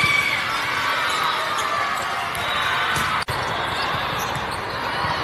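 Reverberant din of a big hall full of volleyball courts: many indistinct voices and volleyballs being struck, with a few sharp knocks. The sound breaks off for an instant about three seconds in.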